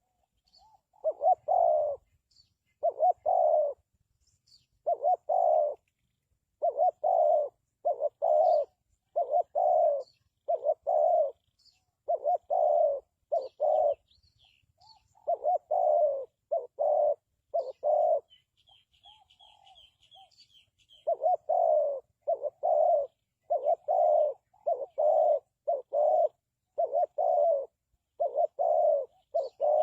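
Spotted dove cooing over and over, about one note a second, with a short break a little past the middle. During the break a small bird gives a quick run of high chirps.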